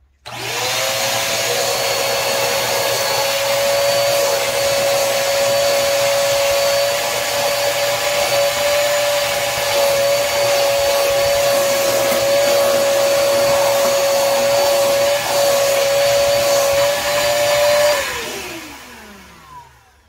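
Koblenz WD-2.5 L 2.5-gallon, 2.5 HP wet/dry shop vacuum switched on, its motor quickly whining up to a steady high pitch, a little loud, and running for about eighteen seconds while its nozzle sucks at a carpet floor mat. Near the end it is switched off and the whine falls away as the motor spins down.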